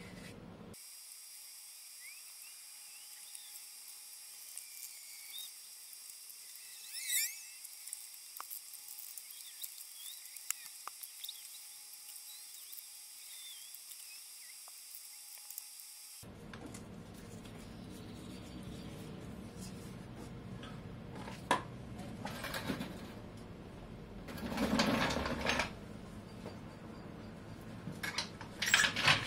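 Faint handling sounds of chassis paint being brushed onto a car's gearbox tunnel from underneath. For about the first half there are only thin, high-pitched chirps and ticks; then come scrapes and a few knocks, the loudest near the end.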